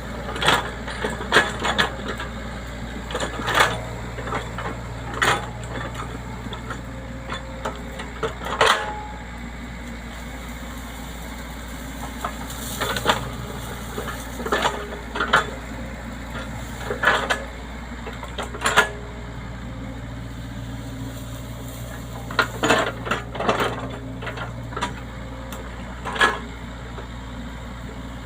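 Excavator's diesel engine running steadily, with irregular sharp knocks and clanks every second or so from the machine at work.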